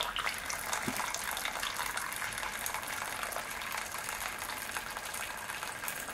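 Keurig K55 single-serve brewer pouring a steady stream of hot water into a mug, a continuous splashing fill. This is a rinse brew run without a pod.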